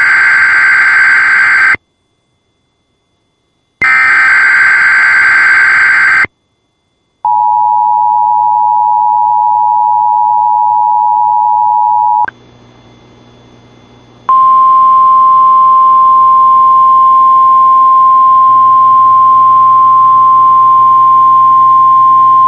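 Emergency Alert System weekly test tones from a NOAA Weather Radio station: two harsh, buzzing SAME digital header bursts of about two seconds each, then the two-note EAS attention tone for about five seconds. After a short pause with a faint hum, the weather radio's single steady alarm tone sounds for about nine seconds.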